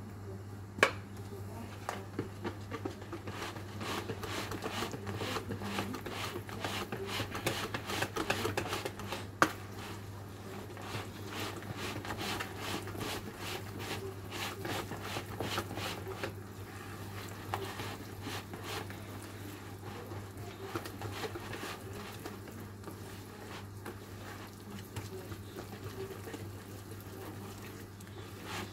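Wire whisk stirring flour into a liquid batter in a plastic bowl: rapid clicking and scraping strokes, busiest over the first half, with a couple of sharper knocks against the bowl. A steady low hum runs underneath.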